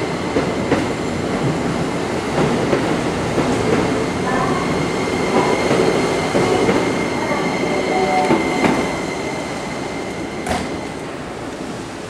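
Keikyu 2100-series electric train pulling out of the station past the platform: wheels clacking over rail joints with a steady high whine under the running noise, getting quieter toward the end as it draws away.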